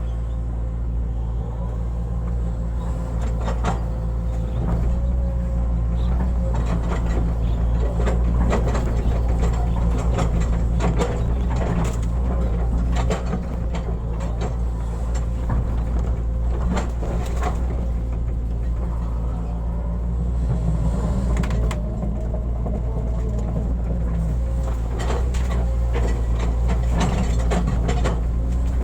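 Hitachi hydraulic excavator's diesel engine running steadily, with frequent knocks and scrapes from the bucket as it digs a ditch.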